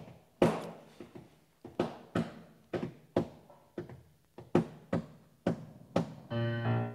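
Footsteps on a hard floor: sharp, echoing heel strikes about two a second. Near the end a sustained piano chord starts.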